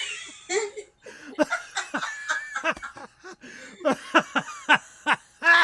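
People laughing and giggling, with short choppy peals of laughter.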